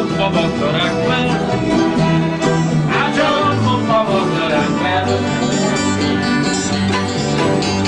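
Fiddle and strummed acoustic guitar playing an instrumental passage together, the fiddle carrying the melody.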